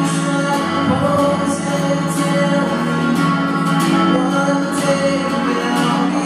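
Acoustic guitar strummed while a man sings along into a microphone.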